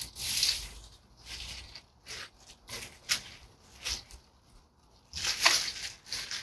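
Dry rose canes and dead leaves rustling in irregular bursts as they are pulled and dragged, with a few short sharp snips from long-handled loppers cutting canes.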